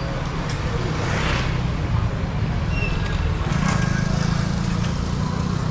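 Motor scooter engine running steadily under road and wind noise while riding, its note getting stronger about three and a half seconds in.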